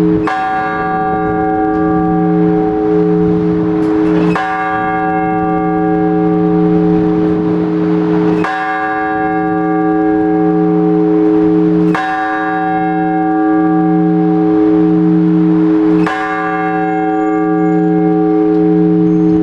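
A single large Orthodox church bell struck five times, about every four seconds. Each stroke rings on into the next over a low, wavering hum. This is the slow, measured ringing of one bell (blagovest) that calls the faithful to the all-night vigil.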